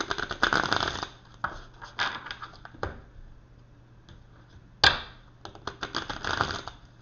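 A tarot deck riffle-shuffled twice by hand on a wooden table: each shuffle is a quick run of fluttering card clicks lasting about a second. Between the two shuffles there are a few taps as the deck is squared, and a sharp knock just before the second shuffle.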